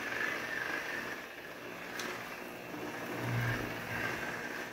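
Electric rotary buffer running at low speed, its buffing pad working one-step polishing compound over wet-sanded automotive clear coat. It gives a steady motor whine with a low hum that swells a little about three seconds in.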